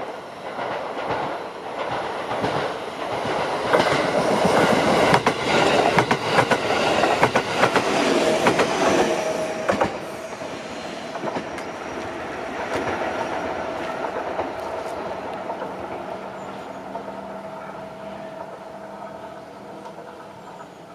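An electric train on the JR Minobu Line passes a level crossing, its wheels clicking rhythmically over the rail joints. It is loudest about four to ten seconds in, then the rolling sound and a steady tone fade away as it moves off.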